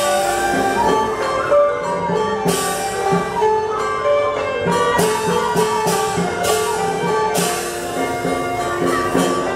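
Teochew Buddhist ritual music: a sustained, gliding melody over steady percussion strokes, with bright cymbal crashes several times.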